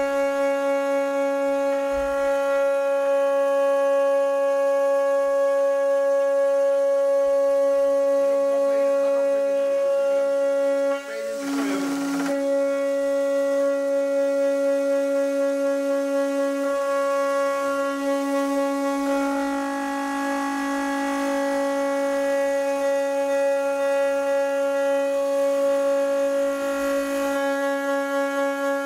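CNC router spindle milling an aluminium plate with a small end mill: a steady high-pitched whine, with a brief rough disturbance about eleven seconds in.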